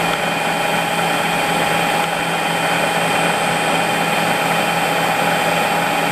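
Harrison M300 lathe (CNC-converted) running with its spindle turning at a constant speed: a steady mechanical hum with several unchanging whining tones.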